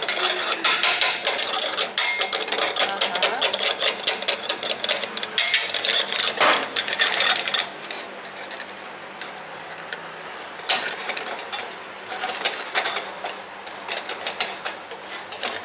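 Fast metallic tapping and scraping of a chef's knife against a round metal künefe tray as the kadayıf pastry is tucked and pressed into it. The tapping is dense for the first several seconds, then thins to scattered taps.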